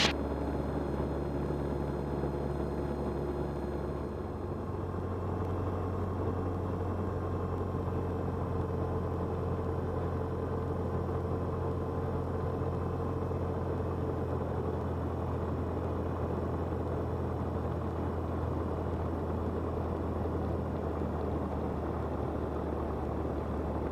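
Cessna 172's piston engine and propeller droning steadily, heard from inside the cockpit, with a slight change in the low drone about four seconds in.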